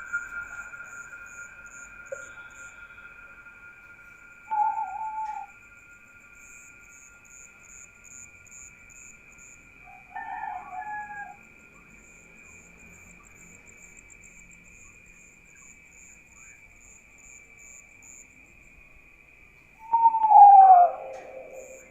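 Night insects keeping up a steady high drone and a fast pulsing chirp. Three short falling animal calls break through it, the loudest one near the end, sliding down in pitch.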